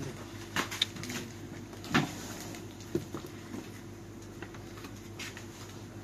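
A few light knocks and rustles from goods being handled at shop shelves, the loudest about two seconds in, over a steady low hum.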